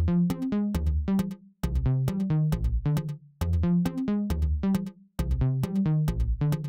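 Electronic background music: a sparse stretch of short, quickly fading synth notes over a bass line, dropping out briefly three times.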